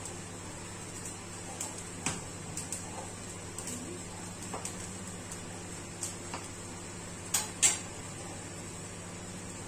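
Metal tongs clicking and scraping against a wire mesh roasting basket over a gas burner: a scattering of short sharp clicks, the loudest pair close together near the end, over a steady low hum.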